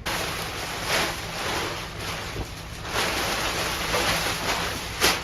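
Wind buffeting the microphone: a rushing noise that swells and eases in gusts, with a sharp knock near the end.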